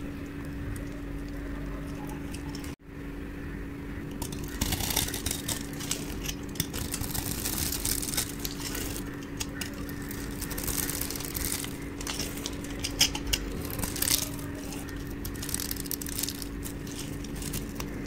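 Knife blade cutting through dry bar soap: crisp crunching and scraping as slivers and small cubes break off, in uneven strokes that grow busier and louder after a brief break about three seconds in. A steady low hum lies underneath.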